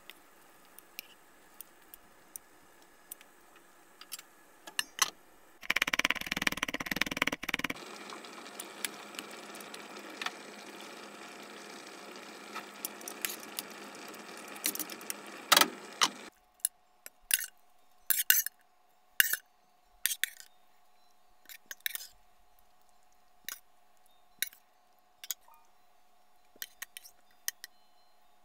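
Metal tongs clinking and scraping against a stainless steel pot, over a steady hiss of simmering tomato sauce. The hiss is loudest for a couple of seconds about six seconds in and cuts off abruptly about halfway. After that come separate clinks of tongs against a ceramic bowl over a faint steady hum.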